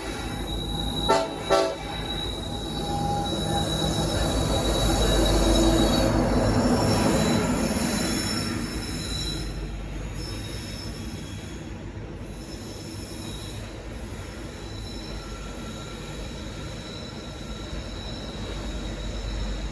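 BNSF train sounding two short horn blasts about a second in, then rolling past, loudest around six seconds in and easing off, with a steady high wheel squeal running under it.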